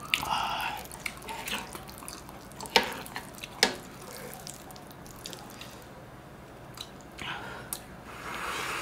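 Spoons scraping and clicking against a frying pan as fried rice is scooped out, with two sharp clicks about three seconds in.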